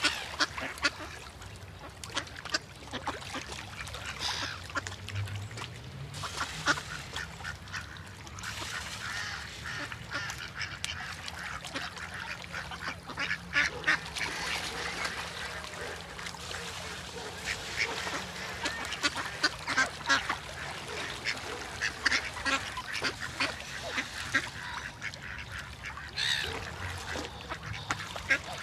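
Ducks quacking over and over, many short calls following one another in quick succession.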